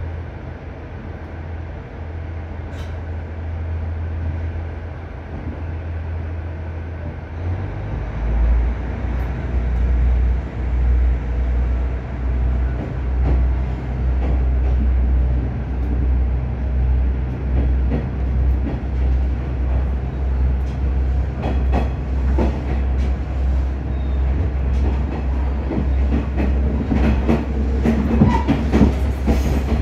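Cabin sound of a KiHa 110 series diesel railcar pulling away. The diesel engine gives a steady low hum, then about seven seconds in it throttles up into a deeper, louder, pulsing drone as the car accelerates. Toward the end, wheel clicks over the rail joints come more and more often.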